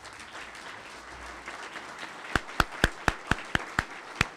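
Audience applauding. About halfway through, eight loud close hand claps from one person at the microphone stand out over it, roughly four a second.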